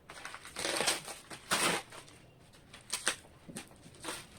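Packing material rustling and crinkling in several short bursts as a satellite speaker is unwrapped and pulled from its box.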